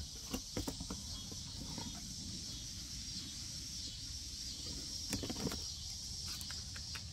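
Steady high-pitched drone of cicadas, with a few soft clicks and a plastic-bag crinkle from packaging being handled about five seconds in.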